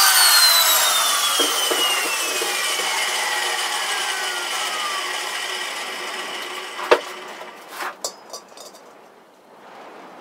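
Angle grinder winding down after being switched off, its whine falling steadily in pitch and fading over about five seconds. Then a sharp knock and a few lighter clunks of metal being handled.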